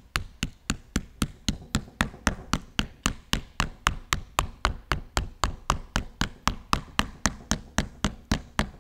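Small mallet tapping the plastic sealing cap strip onto a sealed motorcycle/scooter battery, seating its plugs into the acid fill holes after filling. Steady, rapid light knocks, about three and a half a second, evenly spaced throughout.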